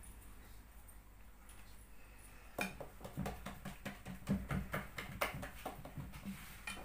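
Low steady hum, then from about two and a half seconds in a run of irregular small clicks and knocks, kitchen handling noises as dough and pans are moved.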